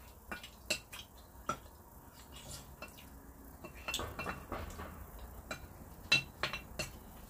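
Chopsticks and a spoon clicking against bowls and dishes while eating: scattered light clinks, the loudest about four seconds in and just after six seconds.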